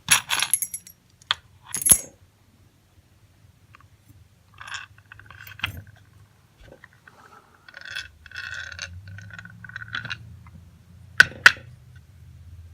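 Small metal padlock parts clinking and scraping on a hard surface while being handled, with a few sharp clicks near the start and two near the end, and softer scraping and rustling in between.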